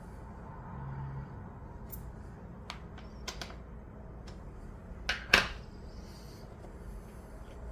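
Scattered light clicks and taps of tools and plastic parts being handled while a watch winder is unscrewed and taken apart, with a louder double knock about five seconds in.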